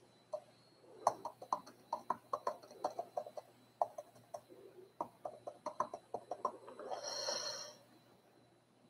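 Irregular taps and clicks of typing on a computer keyboard, several a second, with a brief burst of hiss about seven seconds in.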